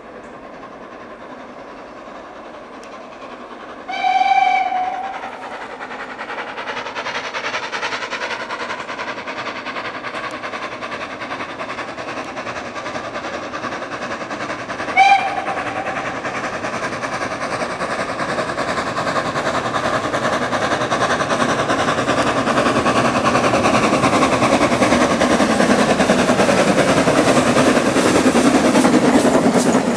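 Steam locomotive 53808, a Somerset & Dorset Joint Railway 7F 2-8-0, whistles for about a second some four seconds in, then gives a short toot about fifteen seconds in. Throughout, the running of the locomotive and its coaches grows steadily louder as the train draws near.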